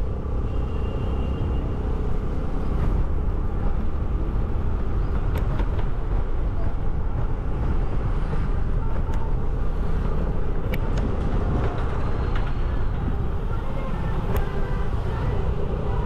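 Steady road noise while riding a scooter: a heavy low rumble of wind and motion, with the scooter and traffic running underneath.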